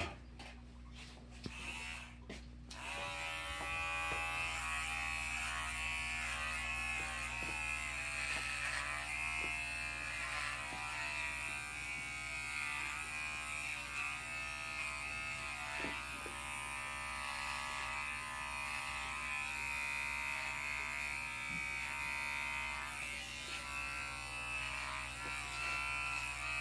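Electric hair clippers switch on about three seconds in and buzz steadily while cutting hair, the pitch wavering slightly as they move through it. A few light clicks of handling come before they start.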